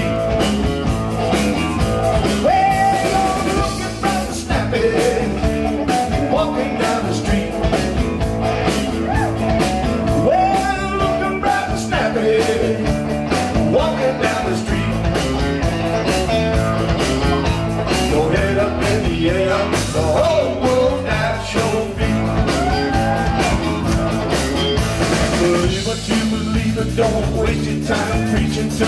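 Live rock and roll band playing an instrumental break: a lead line with bending notes over a steady bass and drum beat.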